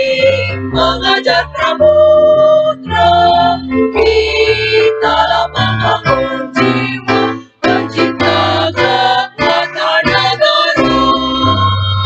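Women's choir singing to an instrumental accompaniment, held sung notes over a steady low bass line.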